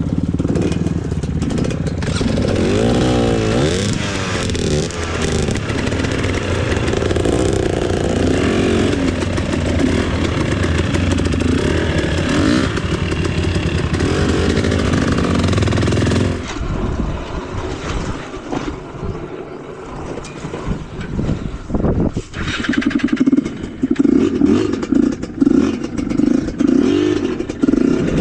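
Off-road trail motorcycle engine running under throttle, its pitch rising and falling as the rider revs through the gears. About sixteen seconds in the sound changes abruptly and gets thinner, then near the end comes a series of short, repeated revs.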